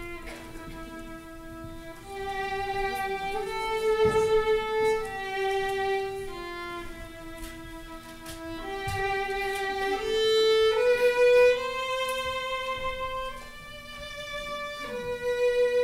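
Violin playing a slow melody of long held notes, over a quieter steady low note.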